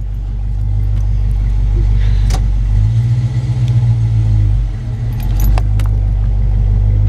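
Ford Mustang convertible driving with the top down: a low, steady engine drone with road noise, swelling for about a second and a half in the middle and then easing off, with a few light jingling clicks over it.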